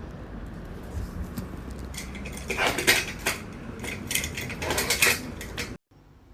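Light metal parts clinking and rattling, with a run of sharp clinks between about two and five seconds in.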